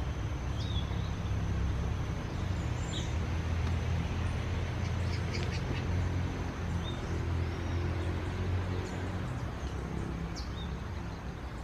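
Small birds giving short, scattered chirps several seconds apart, over a steady low rumble and a thin steady high-pitched whine.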